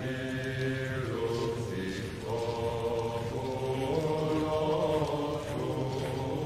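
Medieval-style chanting music: sung voices holding long notes that shift pitch every second or two.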